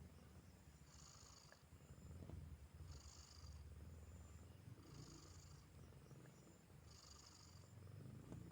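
Domestic cat purring steadily: a faint, low, continuous rumble.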